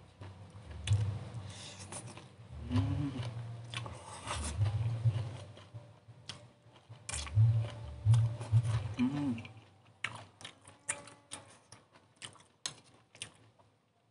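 A person eating up close: slurping and chewing stir-fried water spinach, with two short 'mm' hums. In the last few seconds comes a quick run of sharp clicks as a metal spoon scrapes and taps the plate.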